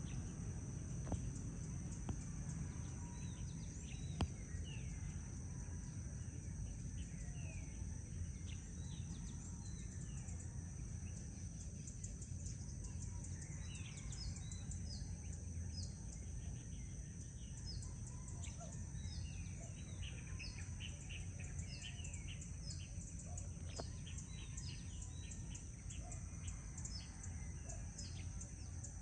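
Birds chirping: short down-slurred calls that grow busier about halfway through, with a run of repeated high notes about once a second, over a steady low rumble and a steady high hiss.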